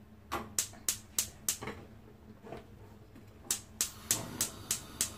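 Gas hob's spark igniter clicking in two runs of quick ticks, about three a second, with a pause of nearly two seconds between them, as the burner is being lit.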